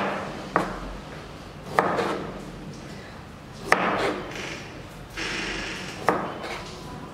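A chef's knife slicing through a peeled white vegetable and knocking on a plastic cutting board, four sharp knocks a second or two apart, each followed by a short scrape of the blade. The cuts trim the vegetable's sides to square it off for dicing.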